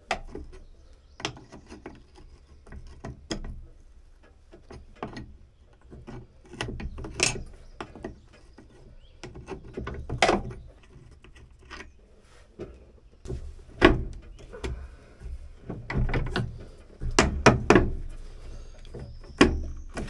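Irregular clanks, knocks and clicks of a hand wrench and tools being worked on an old backhoe's bare steering column, some of them sharp metal hits.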